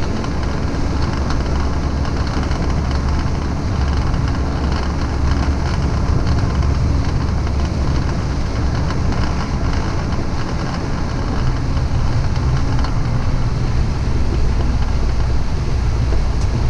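City bus driving along a road, heard from inside at the front: a steady low engine drone mixed with road rumble.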